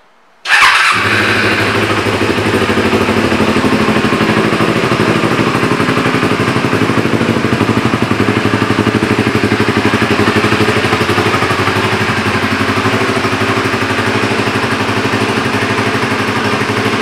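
A 2004 Kawasaki Ninja 250R's parallel-twin engine fires up about half a second in, with a brief louder burst as it catches. It then idles steadily through a polished aftermarket muffler.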